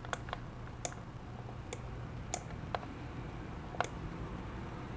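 Scattered single clicks of a computer mouse, about eight of them at uneven gaps, over a faint steady low hum.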